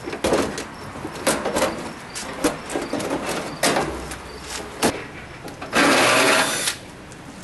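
Sharp clicks and knocks of metal dryer parts being handled and pried at, then a small power tool whirring for about a second, six seconds in.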